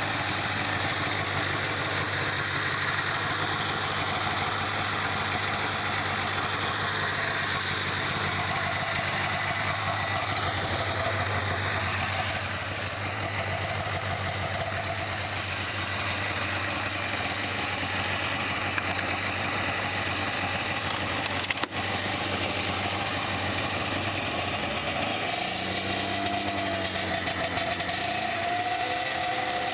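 Polaris snowmobile engine idling steadily, running after its first start of the season. Its pitch climbs a little near the end.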